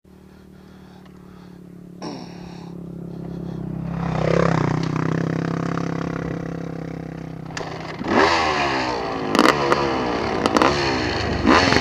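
An off-road vehicle's engine runs louder as it draws close, passes about four seconds in with a drop in pitch, and fades as it rides off down the dirt track. From about eight seconds a second engine close by revs up and down repeatedly, with knocks and rattles as it goes over rough ground.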